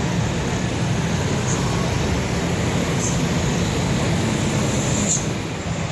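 Tour bus engine running with a steady low rumble amid traffic noise; no horn sounds.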